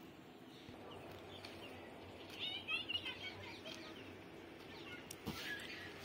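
Birds chirping: a quick run of chirps about two and a half seconds in and more toward the end, over faint outdoor background noise, with a single knock a little after five seconds.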